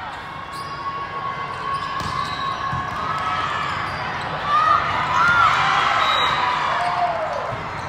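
Volleyball rally: players' calls and spectators' shouting overlap, building to a loud burst of yelling about halfway through, with a few sharp smacks of the ball being hit, all echoing in a large hall.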